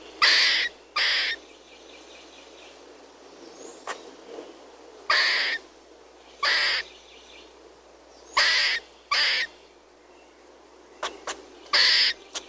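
Squirrel chirping: short, rough chirps, mostly in pairs, repeated every few seconds, with two quick clicks shortly before the last chirp.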